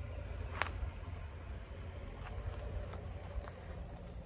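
Crickets chirping steadily in the evening, over a low rumble. A few short sharp clicks stand out, the clearest about half a second in.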